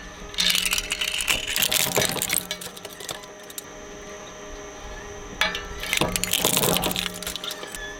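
Twin-shaft shredder running with a steady hum as its rotating blades crunch and clatter through small toy cars, one after another. A burst of crunching starts about half a second in and lasts a couple of seconds, and a second one starts around five and a half seconds in.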